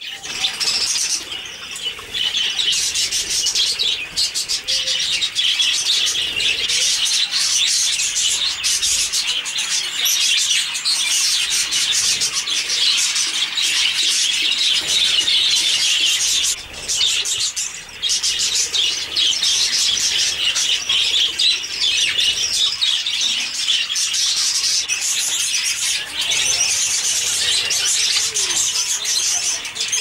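Budgerigars chattering and chirping, many quick overlapping chirps with no break.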